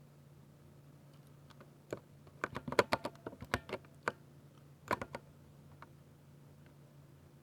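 Typing on a 60% Ducky mechanical keyboard with silver switches: a single keystroke about two seconds in, then a quick run of clacks until about four seconds in and a few more around five seconds, with pauses before and after. A steady low hum sits underneath.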